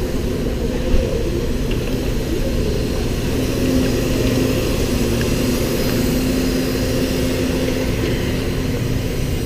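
Steady low rumble and hum of a metro train standing at the platform with its doors open, with one short knock about a second in.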